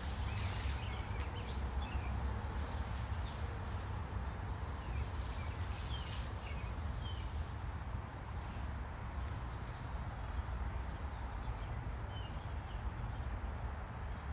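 Outdoor garden ambience: a low rumble of wind on the microphone, with scattered short bird chirps.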